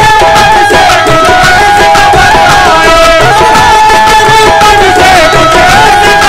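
Qawwali music: a harmonium playing a stepping melody of held notes over a tabla beat.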